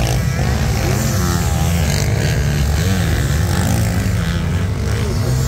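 Several motocross bikes racing past, their engines revving up and down over one another, with a steady low rumble underneath.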